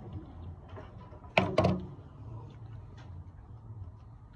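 Two sharp knocks in quick succession, about a fifth of a second apart, about a second and a half in, over a low steady room background.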